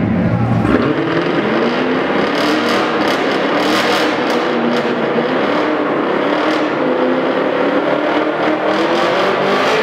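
Car doing a burnout: the engine is held at high revs while the rear tyre spins on the pavement, giving a loud, steady rush of engine and tyre noise.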